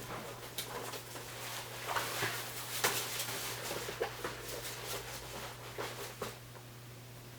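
Handling noises: scattered light clicks and crinkles over a steady low hum.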